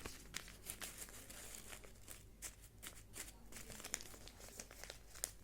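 Faint paper rustling and crinkling, an irregular run of small crackles as loose cut paper packing is handled.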